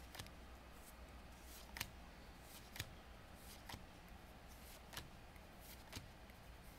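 Pokémon trading cards flicked through one at a time in the hands, giving a light snap about once a second, six or so in all, against a quiet room.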